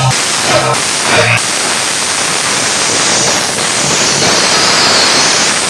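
Budots dance track playing loud over a sound system: short shouted vocal samples, then a loud white-noise riser building in brightness toward the drop.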